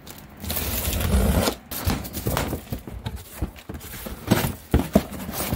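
Cardboard shipping box being opened: the packing tape is slit and torn in one long scraping stretch, then the flaps are pulled back and crumpled kraft packing paper is handled, with many short knocks and rustles.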